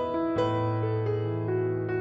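Background music led by soft piano or electric piano, playing a slow melody of held notes over a low sustained bass note.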